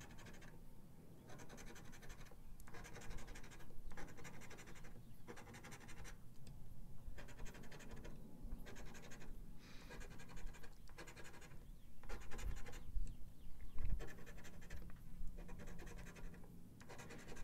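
A coin scratching the coating off a paper scratch-off lottery ticket in a run of short strokes with brief pauses between them.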